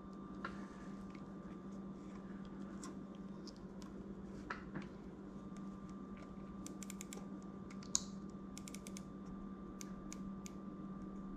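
Small, sharp clicks and light taps from turning the adjustment screw of a red dot sight mounted on a shotgun, with a quick run of several clicks about two-thirds through. The sight's elevation is being adjusted to bring the red dot onto a laser boresighter's dot.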